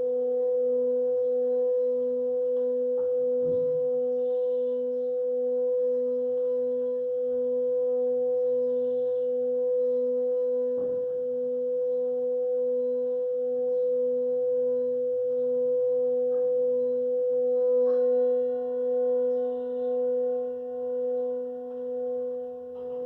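Tibetan singing bowl played around its rim: a steady ringing tone with several overtones, the lowest wobbling slowly. About 18 seconds in a light knock sounds, and then the tone swells and fades in slow waves.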